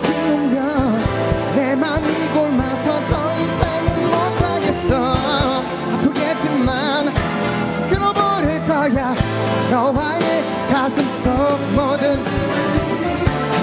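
A male singer singing a pop ballad with vibrato, accompanied by electric keyboard and a steady beat.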